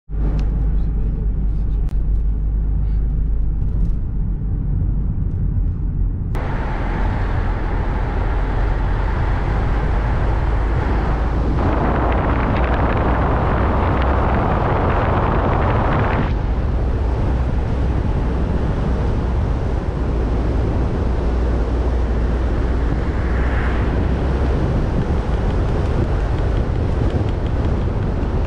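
A car driving along a winding road, heard from a camera on the bonnet: a steady low rumble of engine and tyres with wind rushing over the microphone. The rushing grows suddenly louder about six seconds in and is loudest for a few seconds around the middle.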